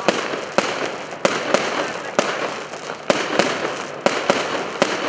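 Aerial fireworks bursting overhead: a string of sharp bangs, about two a second at uneven spacing, over a continuous crackling hiss.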